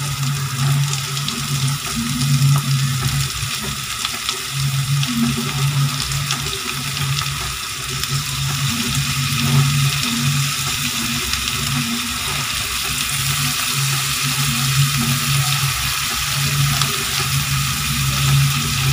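Prawns and onion masala sizzling steadily in a kadai as they fry, with a low hum coming and going underneath.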